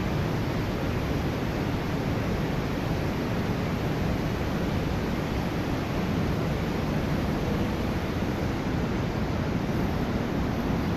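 Steady rush of water from an underground waterfall, heard inside a cave.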